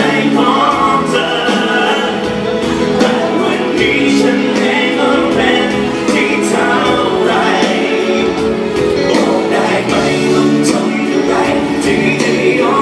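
Live band playing a song with singing, recorded from far back in a concert hall, with drums keeping a steady beat.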